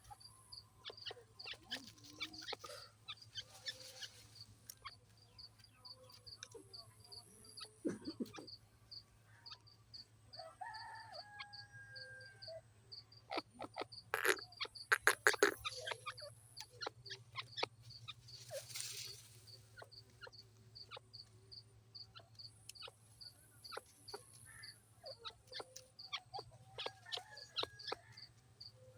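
Partridge calling in a series of short notes, loudest in a burst about halfway through, over an evenly repeating high-pitched ticking and a low hum.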